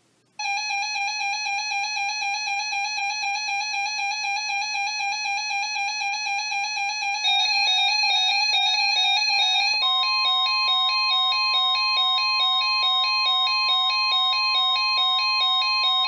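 Weather radio alert alarm for a flash flood warning: a rapid, steady two-tone electronic beeping that starts abruptly, grows louder about seven seconds in, and is joined near ten seconds by the steady high NOAA Weather Radio warning alarm tone.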